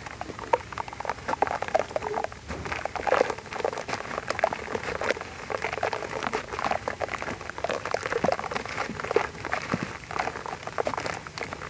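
Moulded black sand shapes crumbling apart in foamy water: a continuous, irregular stream of small crackles, pops and wet fizzing as the wet sand breaks down.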